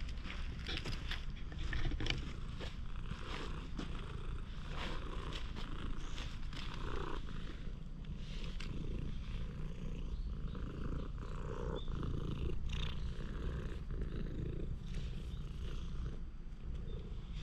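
Domestic cat purring steadily while being petted, with scattered light clicks and rustles.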